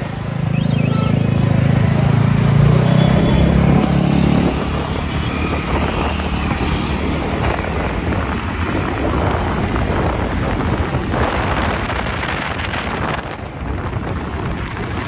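A Yamaha R15 sportbike's single-cylinder engine, loud for the first four seconds or so as it passes close, then steady wind rush and road noise from riding on a scooter.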